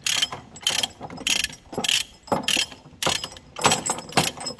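Ratcheting load binder on a tie-down chain being cranked, its pawl clicking in short bursts about every half second as the handle is worked back and forth. The binder is being run open to let out chain length.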